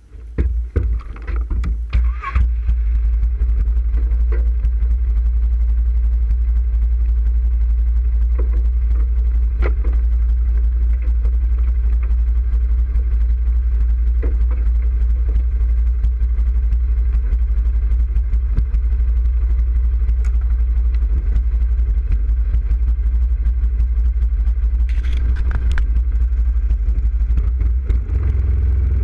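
ATV engine idling steadily, heard as a low rumble through the front rack the camera rides on; uneven for the first couple of seconds before settling. A second quad's engine grows louder near the end.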